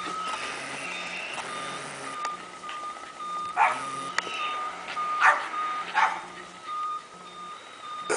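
A small dog barks three short times, about a second apart, near the middle. A steady high-pitched tone that breaks off briefly now and then runs underneath.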